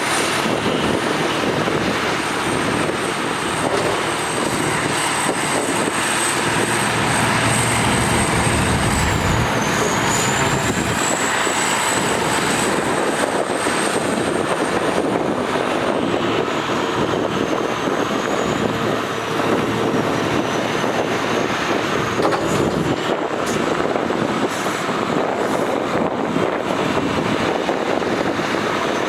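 Diesel engines of heavy earthmoving machinery running steadily, with a thin high whine above the engine noise that dips in pitch a few times.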